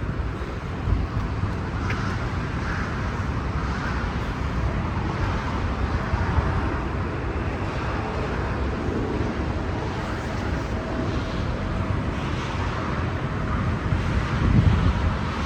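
Wind buffeting the microphone over a steady hum of road traffic, with a stronger gust near the end.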